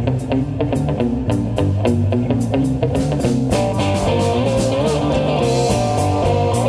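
Live band music: a cigar box guitar with electric bass and drums, the drums keeping a steady beat, the sound thickening into fuller, sustained notes about halfway through.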